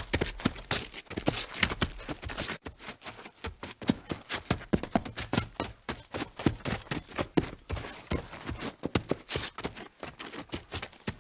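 Footsteps: a fast, continuous run of sharp steps, several a second, with a brief lull about two and a half seconds in.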